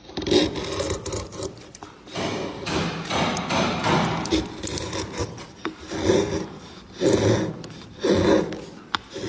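Hand knife shaving a wooden clog: a string of scraping, rasping cuts through the wood, roughly one a second.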